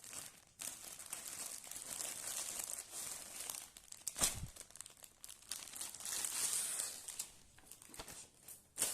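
Parcel packaging crinkling and rustling as it is handled and pulled open, with a sharp crackle about four seconds in and another near the end.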